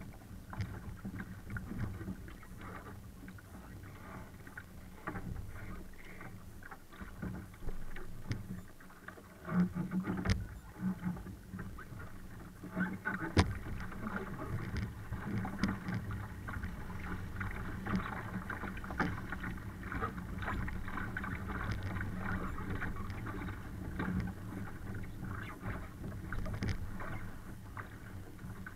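Water rushing and slapping against a Laser dinghy's hull as it sails in strong wind, swelling and easing, with a few sharp knocks, the loudest about thirteen seconds in.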